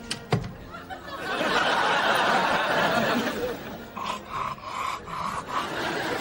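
A short knock, then studio audience laughter that swells about a second in and trails off into a few pulsing laughs.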